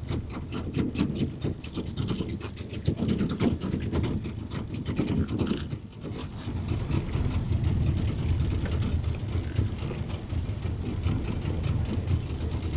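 Small boat's motor running with a steady low rumble. During the first half there are rapid clicks and scratching from the fishing rod and reel being worked against a big jack on the line.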